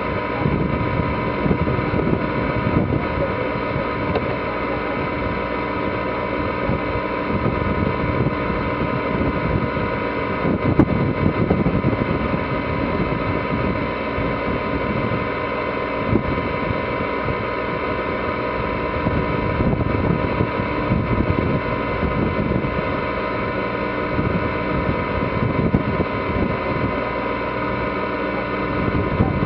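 Sailboat's inboard diesel engine running steadily while the boat motors under power, with gusts of wind rumbling on the microphone.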